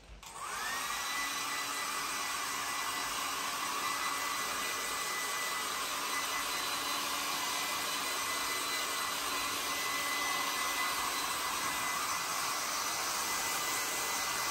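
Small handheld electric hair dryer switching on, its whine rising within the first half-second. It then runs steadily, a high motor whistle over the rush of air.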